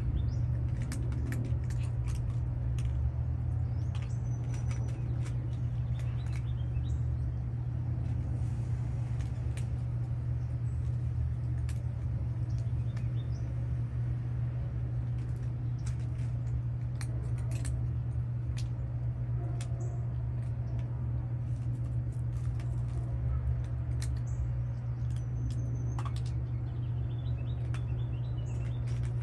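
A steady low hum of machinery, with faint scattered clicks of cats chewing their food and a few short high bird chirps.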